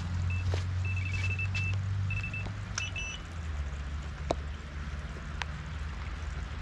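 Delkim electronic bite alarm on a rod pod giving quick runs of high, even beeps for the first two and a half seconds: line being pulled through the alarm, the sign of a fish taking the bait. A sharp click follows about four seconds in, with wind rumbling on the microphone.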